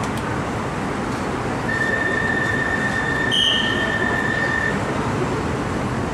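Japanese-built elevated metro train running, heard from inside the passenger car as a steady rumble. A steady high-pitched squeal rises over it for about three seconds in the middle, the brightest moment about halfway through.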